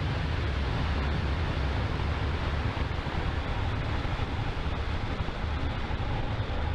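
Falcon 9 rocket's nine Merlin 1D first-stage engines at full thrust just after liftoff: a steady, dense rush of noise with a heavy low rumble.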